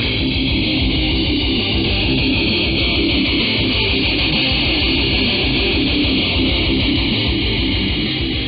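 Guitar music received on a shortwave AM broadcast, with steady hiss from the radio channel and no sound above the AM bandwidth limit.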